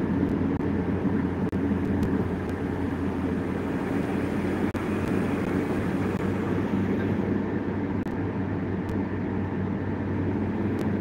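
Steady road and engine hum inside a car's cabin as it drives at speed on a highway. The sound dips out very briefly a few times.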